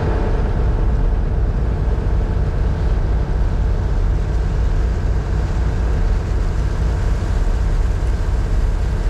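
Boat engine running steadily with a low throb, under the rush of wind and water as the boat moves along.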